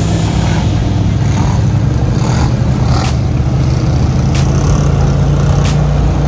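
ATV engines running steadily at a constant pitch as the quads drive through creek water, with the spray and wash of water and a few short sharp clicks.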